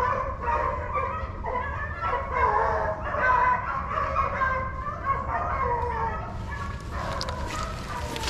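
A pack of beagles baying on a swamp rabbit's trail, many voices overlapping in a steady chase cry. The baying dies away about six seconds in.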